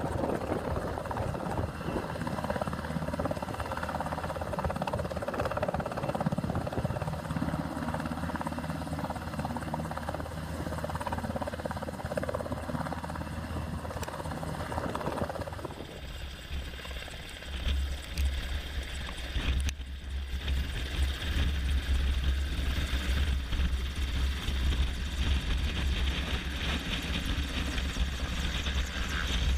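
UH-60 Black Hawk helicopter hovering low, its main rotor and turbine engines running steadily. About halfway through the sound shifts to a closer position directly beneath it, heavier and lower, with rotor wash buffeting the microphone.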